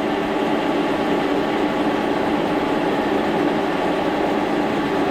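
Brown & Sharpe horizontal milling machine running in gear: a steady mechanical drone with a few low humming tones.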